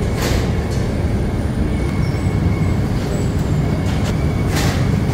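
Steady low mechanical rumble, with two short sharp knocks, one just after the start and one near the end.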